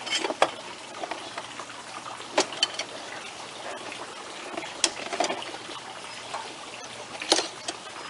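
Battery Shackle lock's metal bars and hardware clicking and clinking, about half a dozen sharp clicks spread a second or two apart, as the lock is fitted and secured over an RV battery box. A steady low hiss runs underneath.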